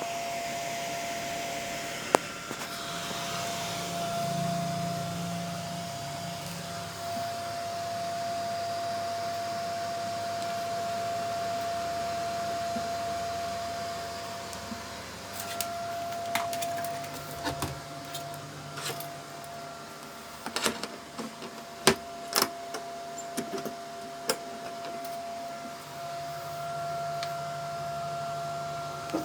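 Electric egg incubator running: a steady fan hum with one constant tone. A scatter of sharp clicks and knocks comes in the second half.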